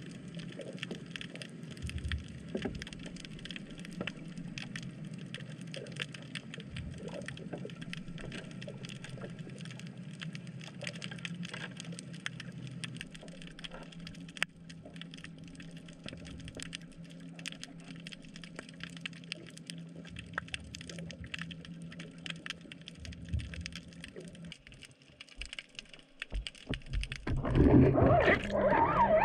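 Underwater sound picked up by a submerged camera: a steady low hum with many faint crackling clicks. About 27 seconds in, loud splashing and gurgling as the camera comes up through the water to the surface.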